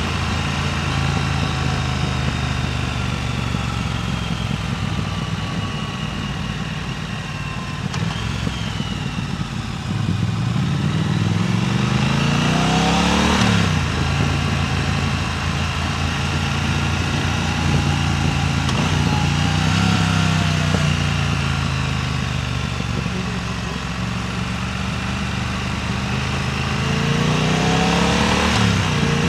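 Motorcycle engine running while riding, its pitch climbing under acceleration and dropping sharply at gear changes, about halfway through and again near the end, with wind rushing over the microphone.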